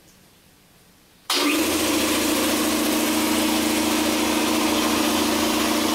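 Oil-lubricated air compressor switched on, starting about a second in and running steadily as it pumps up its tank, then cutting off suddenly near the end.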